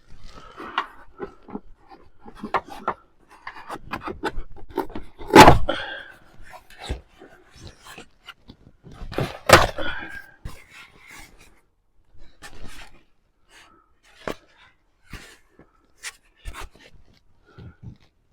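Irregular handling and knocking sounds of work in the van's ceiling: scattered rustles and light clicks, with two louder thumps about five and a half and nine and a half seconds in.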